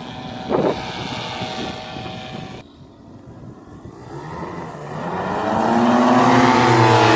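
Air Conception Nitro 200 two-stroke paramotor engine and propeller droning in flight. It fades about two and a half seconds in, then grows louder from about four seconds as the paramotor approaches on a low pass, loudest near the end, with its pitch bending as it goes by.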